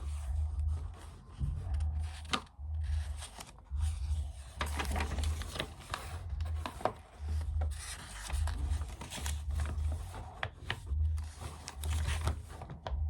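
Close handling noise: irregular rubbing and scraping with scattered clicks as objects are handled near the microphone, with a low muffled rumble coming and going.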